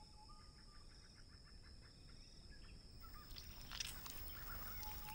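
Faint forest ambience: a steady high insect drone with soft scattered chirps, and from about three seconds in, faint rustling and crackling.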